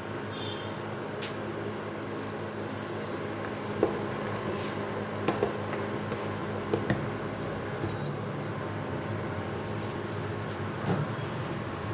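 Steady low hum, with a few sharp clinks of kitchen utensils against dishes scattered through the second half and one short ringing ping about two-thirds of the way in.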